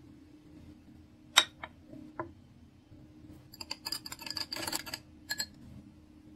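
A sharp click about a second in, then a metal spoon stirring and clinking against a drinking glass of chia-seed water, a quick run of ringing clinks lasting about two seconds.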